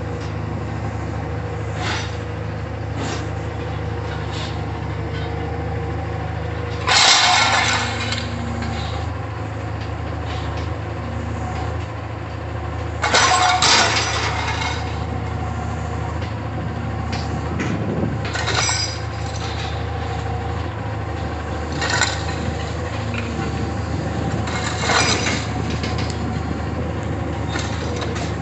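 Diesel engine of a Caterpillar wheeled scrap handler running steadily while its grapple loads a gondola rail car, with several loud crashes of scrap metal, the biggest about a quarter and halfway through, and lighter clanks after.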